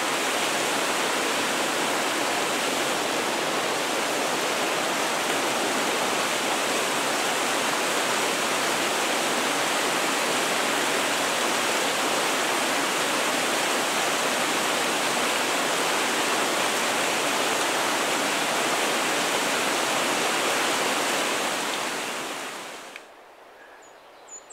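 Steep mountain creek cascading over rocks, a steady rushing of water. Near the end the rushing fades out, leaving quiet with a few faint high chirps.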